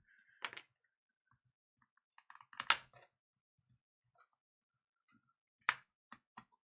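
Scattered sharp plastic clicks and snaps as a pry tool works around the glued back cover of a Huawei MediaPad T3 10 tablet, with two louder snaps, one a little under three seconds in and one near six seconds.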